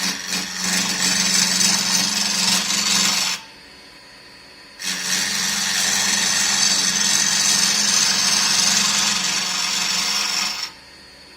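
Wood lathe roughing out a teak handle blank with a carbide-tipped tool: a steady hiss of cutting over a low hum. It breaks off for about a second and a half a little over three seconds in, runs again, and stops shortly before the end.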